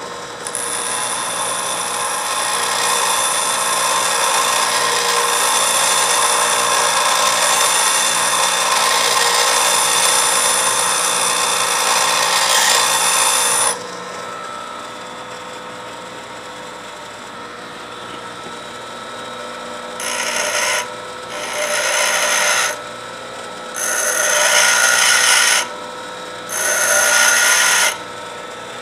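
DeWalt pedestal grinder running with a lathe tool bit held against its roughing wheel: one long, continuous grind of about thirteen seconds, then only the motor's steady hum, then four short grinding passes near the end as the bit is shaped.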